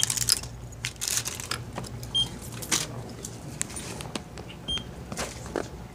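A few short high electronic beeps, a couple of seconds apart, among rustles and clicks from handled packages, over a steady low hum.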